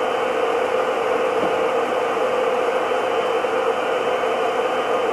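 Countertop blender running steadily, puréeing a thick chili sauce of ají amarillo with huacatay: an even whir with a steady hum.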